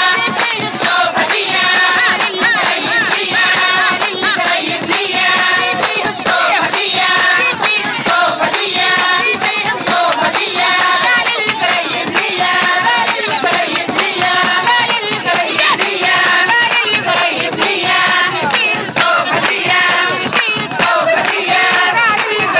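Loud singing over music with a steady rhythm of hand clapping.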